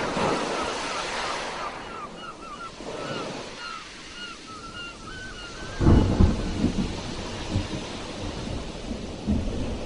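Sea waves washing and surging ashore, with a heavy low crash about six seconds in. Over the surf, through the first two-thirds, runs a quick repeating series of short high chirps.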